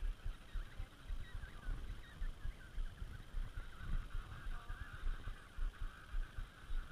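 A chorus of emperor penguin calls from the colony, a dense chatter of whistles and squawks blending together, over irregular low thuds a few times a second.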